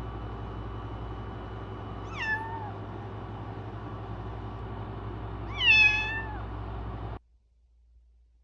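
A young kitten, about two weeks old, meowing twice, the second call louder; each meow starts high and falls in pitch. A steady low hum runs underneath and cuts off suddenly near the end.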